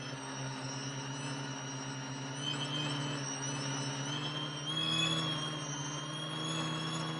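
Quadcopter's electric motors and propellers buzzing steadily, a low hum under several high whines whose pitch drifts slightly up and down as the motor speeds are adjusted.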